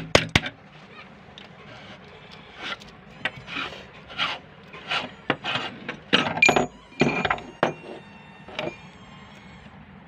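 Meat grinder crunching plastic animal toys: a string of irregular cracking, rasping crunches, heaviest about two-thirds of the way through.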